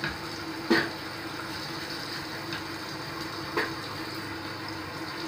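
Water running steadily from a bathroom sink tap, with a faint steady hum under it and a couple of light knocks, about a second in and past halfway.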